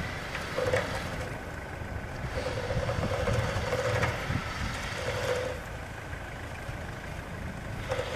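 A motor vehicle's engine running, with a steady mid-pitched tone that fades in and out several times.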